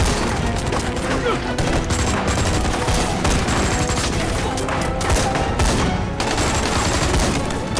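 A heavy exchange of gunfire: many guns firing at once, their shots overlapping in a continuous rattle with no pause.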